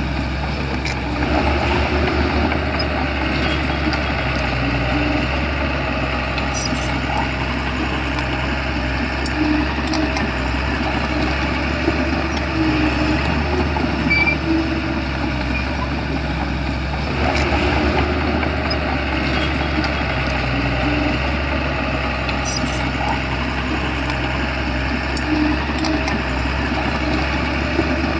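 Shantui bulldozer's diesel engine running steadily, with a continuous mechanical clanking and rattling; the engine sound changes briefly about a second in and again about seventeen seconds in.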